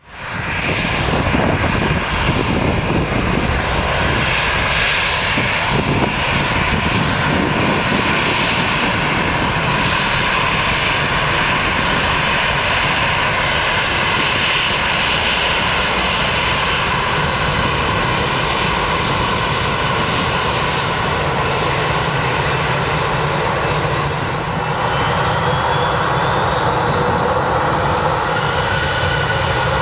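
Airbus A321's twin CFM56-5B jet engines running steadily at low thrust as it taxis. Near the end a rising whine sets in as the engines spool up for the takeoff roll.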